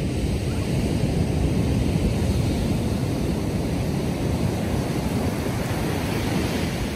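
Ocean surf breaking and washing up a sand beach in a steady rush, with wind rumbling on the microphone.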